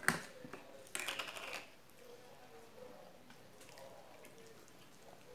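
Fried fish being torn apart and eaten by hand: small clicks and smacks, with a brief crackling rustle about a second in, then faint mouth sounds.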